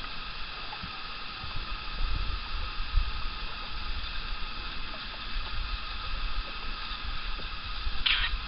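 Outdoor ambience on open water: gusts of wind rumbling on the microphone and water sloshing, over a steady hiss.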